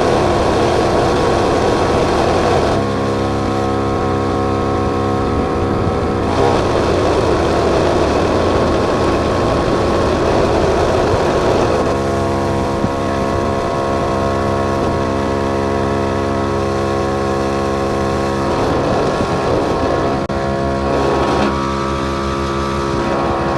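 Portable 12-volt Air Armor single-cylinder air compressor running continuously while inflating a flat 33-inch tire. Its sound alternates between an even hum and rougher stretches.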